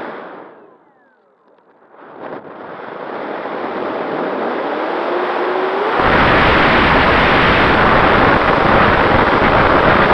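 Model airplane's motor and propeller heard through its onboard camera: the throttle is cut and the motor winds down with a falling pitch to near quiet, then it spools back up with a rising whine. About six seconds in, a loud, deep rush of wind buffeting the camera's microphone sets in at speed.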